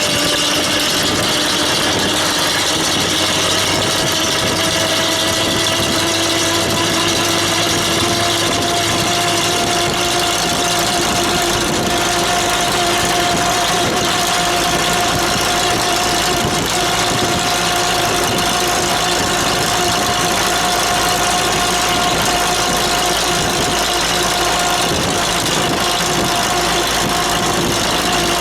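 Steady traffic noise on a wet road: a motor vehicle's engine hum that rises slowly in pitch over the first half and then holds, over a constant hiss.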